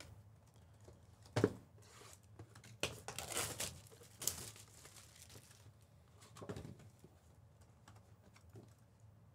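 Trading card packs being opened and handled: wrapper crinkling and tearing, with a few sharp clicks or taps, the loudest about a second and a half in.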